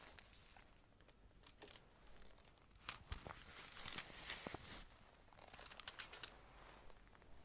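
Quiet rustling and a few sharp clicks as rune pieces are handled close to the microphone.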